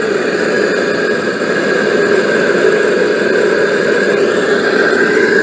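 Gas torch burner firing into a small firebrick mini forge, a loud, steady rushing noise.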